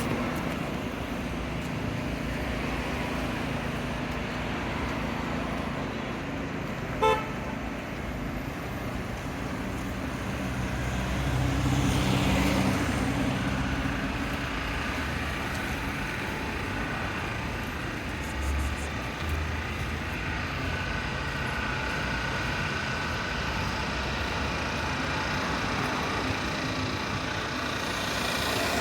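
City street traffic: cars passing with a steady engine and tyre rumble, one passing louder about twelve seconds in. A short car horn toot sounds once about seven seconds in.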